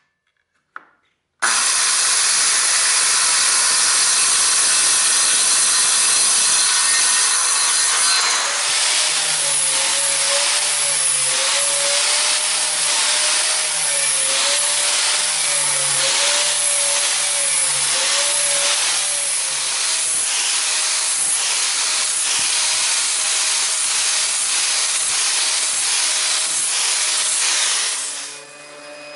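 Angle grinder with a flap disc sanding the live edge of a white oak slab, running steadily with a high whine, after a brief silence near the start. The sound fades out near the end.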